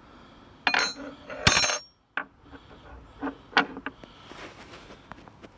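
Metal clanks and clinks of hand tools and machine parts knocking together, with a loud ringing clank about a second and a half in, followed by several lighter clicks.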